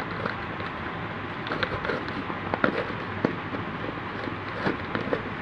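Plastic clicking and rattling as a green plastic lidded container is gripped and pressed by hand: irregular small clicks over a faint hiss.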